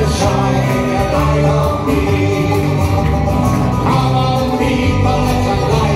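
Live folk band playing a song: a sung lead vocal over strummed acoustic guitar, banjo, upright bass and tin whistle, at a steady loud level.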